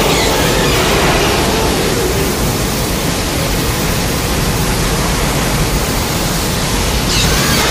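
Loud, steady rushing noise of a dubbed sound effect, laid under Godzilla's atomic-breath beam, with a sweeping sound coming in near the end.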